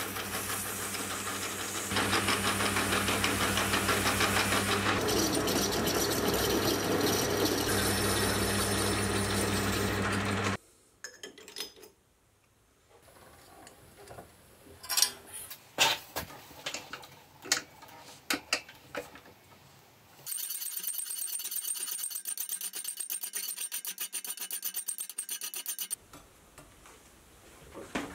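Small metal lathe running with a steel tube spinning in its chuck while abrasive cloth is held against it; the rubbing gets louder about two seconds in, and the lathe stops about ten seconds in. Then come scattered clanks and taps of steel parts being set in a vise, and a few seconds of a steady mechanical whirr.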